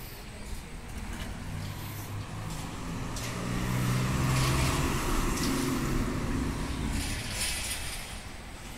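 A motor vehicle passing on the road ahead. Its engine and tyre noise swells to a peak about four seconds in and then fades away.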